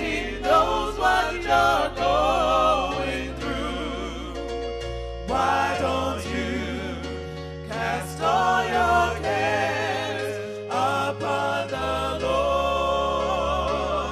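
Gospel music: a singing voice with strong vibrato over sustained low bass notes that change every second or two.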